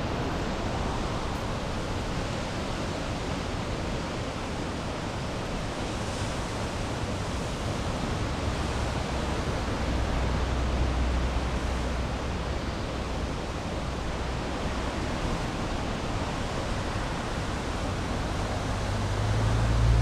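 Steady rush of ocean surf breaking on the beach below, mixed with wind on the microphone. A low rumble swells about halfway through and again near the end.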